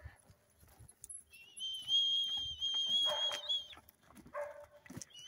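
A long, steady, high whistle, held about two seconds with a slight waver: a handler's whistle command to a working dog moving cattle. Two short animal calls sound during and after it.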